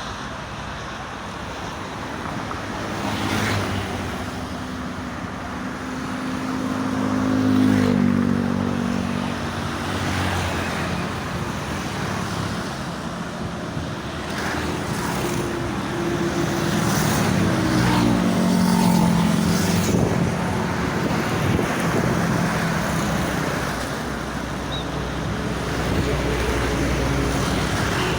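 Toll-road traffic rushing past steadily, with the engine drone of heavier vehicles swelling and dropping in pitch as they pass, about eight seconds in and again around eighteen seconds.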